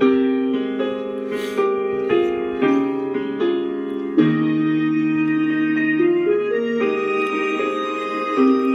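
Instrumental song intro played on piano-like keyboard: chords struck about every half second for the first four seconds, then longer held chords with no voice.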